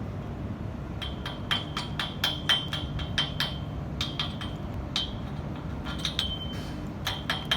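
A hammer striking a stainless steel pipe: a run of sharp metal taps in irregular clusters, starting about a second in, each leaving a brief high ring. A steady low hum runs beneath.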